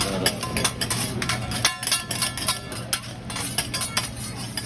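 Metal cooking utensils clanking and clicking against a hibachi flat-top griddle: a quick, irregular run of sharp metallic strikes, several a second, over a steady low hum.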